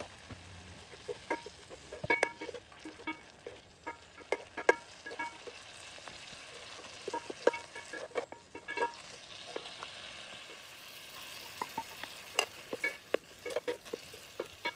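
Wooden spatula stirring and knocking irregularly against a pot while water spinach (Chinese morning glory) stir-fries, over a steady sizzle of hot oil that grows stronger about two-thirds of the way through.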